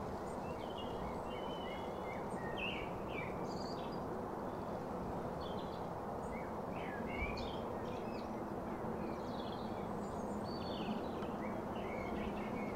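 Birds chirping over and over, in short high calls scattered throughout, over a steady background hum with a faint constant tone.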